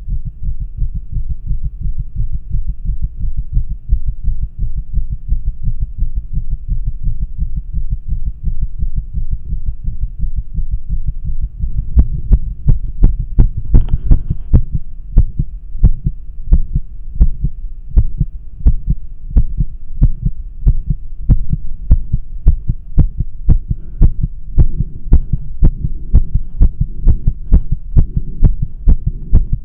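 A fast heartbeat heard through a stethoscope with a microphone in its tubing, held to the chest during a bout of tachycardia, with a steady low hum beneath. About twelve seconds in, the beats turn sharper and louder, and a brief rustle follows soon after.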